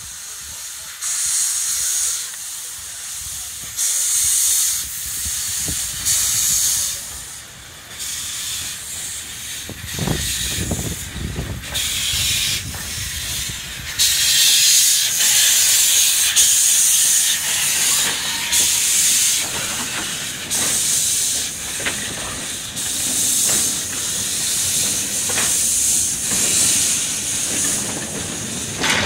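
Small narrow-gauge steam locomotive letting off steam in repeated loud hisses, with a heavier rumble as it passes close about ten seconds in. From about halfway there is a longer continuous hiss as the engine and its train of goods wagons go by.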